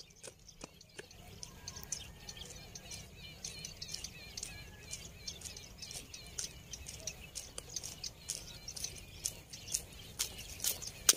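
Footsteps on a rough asphalt road, faint at first and growing louder near the end as the walker comes up close. Birds chirp in the background.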